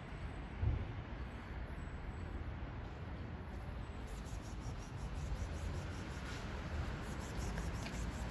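Steady outdoor background noise with a low rumble and a brief low thump just under a second in.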